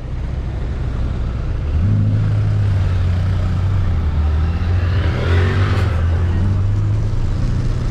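Car engine running with a steady low hum that grows stronger about two seconds in and holds, as if revved slightly or pulling away. A rougher noise rises briefly around five to six seconds.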